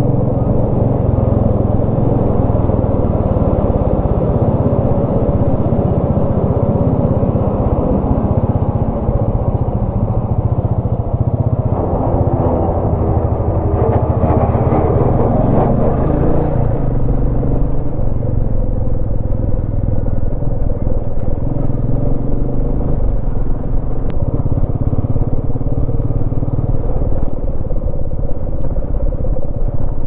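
Motorcycle engine running steadily while riding, mixed with wind noise on the microphone; the tone fills out for a few seconds around the middle.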